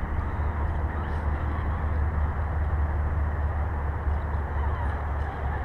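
Steady low rumble of wind buffeting an outdoor microphone, with an even hiss over it. Faint bird calls warble now and then.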